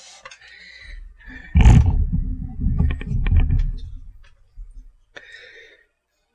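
A cardboard toy box being handled and opened close to the microphone: a heavy thump about a second and a half in, then a deep rumble with a quick run of clicks, and a short scratchy rasp about five seconds in.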